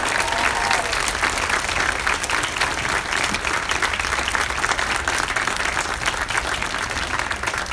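A crowd applauding with dense, steady clapping that eases a little near the end.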